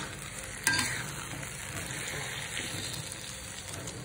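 Chopped tomatoes and chilies sizzling in a wok as a metal spatula stirs them, with one sharp clack of the spatula against the pan a little under a second in.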